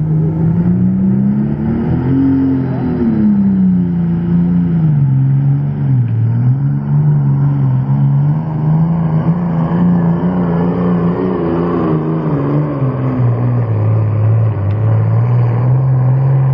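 Turbocharged diesel engine of a 10,500 lb hot stock pulling tractor at full power dragging a weight-transfer sled down the track. Its pitch climbs over the first two seconds, drops back, and then wavers up and down as the load on the engine changes.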